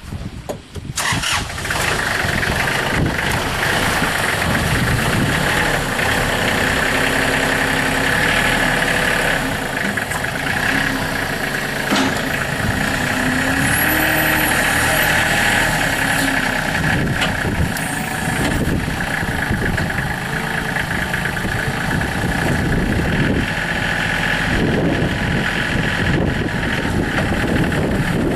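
2003 Kubota L35 tractor loader backhoe's diesel engine cranking and catching about a second in, then running steadily.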